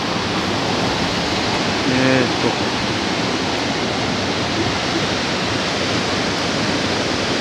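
Water at a dam rushing steadily, an even, unbroken hiss.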